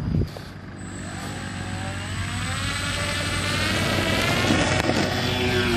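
Twin brushless electric motors and propellers of an RC PBY Catalina model spooling up to takeoff throttle: after a brief knock at the start, a whine rises in pitch and grows louder, then holds steady as the plane rolls for takeoff.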